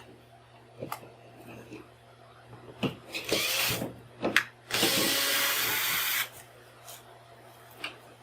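Power drill running in two short bursts, the second longer, between handling clicks and knocks.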